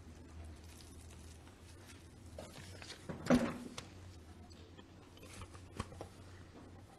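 Quiet meeting-room tone with a low steady hum, scattered faint knocks and rustles, and one brief louder noise a little over three seconds in.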